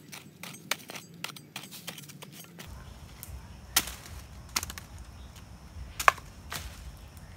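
A hoe chopping into dry, hard soil in quick repeated strikes, about three or four a second. These stop and give way to a few scattered sharp knocks and scrapes as the soil is worked by hand around a planting hole.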